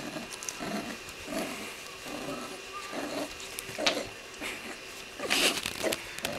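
Two corgi puppies growling in short repeated bursts, about two a second, while tugging on a rope toy, with a louder, rougher burst about five seconds in.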